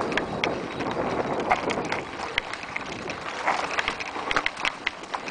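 Mountain bike clattering at speed down a rocky dirt singletrack: frequent irregular sharp clicks and knocks as the tyres run over loose stones, over wind noise on the microphone.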